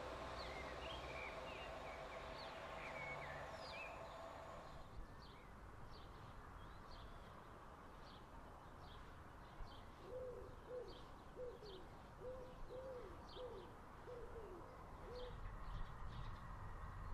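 Small birds chirping over the low hum of a distant diesel train. After about five seconds the hum stops and the chirps carry on at a steady pace. Later a dove coos in a run of low hooting notes lasting about five seconds.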